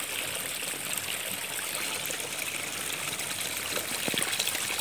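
Spring water trickling steadily along a small channel in the ground.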